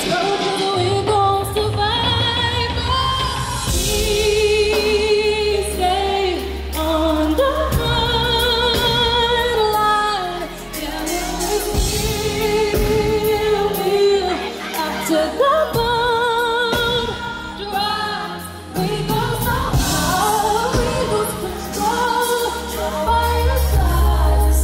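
A woman singing an R&B song live into a microphone, holding long notes with a wide vibrato, over a band with deep sustained bass notes.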